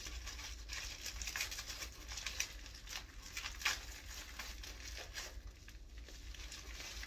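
Clear plastic bubble wrap crinkling and rustling in irregular crackles as it is pulled open by hand to free a glass piece.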